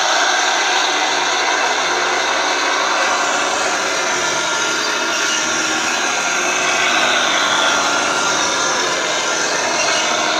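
A 1:16 Mato metal Sturmtiger RC model tank running, giving off a steady mechanical running noise that stays even throughout.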